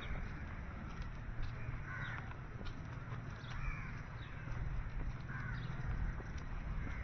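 Birds calling outdoors: short, harsh calls repeated every second or two over a steady low rumble.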